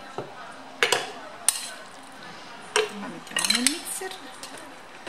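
A spoon knocking and scraping against a glass bowl and a plastic chopper beaker as soft cooked grass peas are scooped from one to the other. There are a few sharp single clinks, then a quick run of taps about three and a half seconds in.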